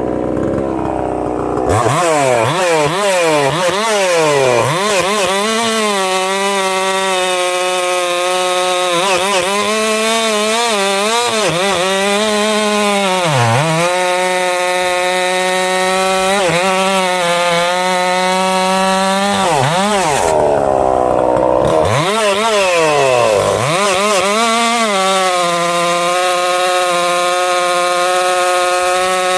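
Husqvarna 262XP 60cc two-stroke chainsaw cutting through large ash wood. It is throttled up about two seconds in, then the engine pitch rises and falls repeatedly, dipping sharply as the chain bogs under load in the cut. The cutting noise drops out briefly about two-thirds of the way through before the saw revs back in.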